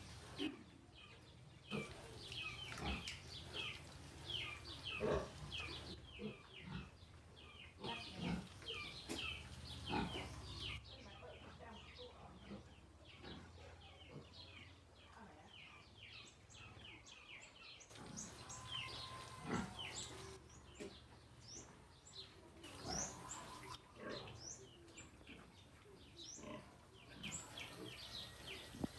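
Piglets grunting and smacking as they eat, with sharp chewing clicks scattered throughout.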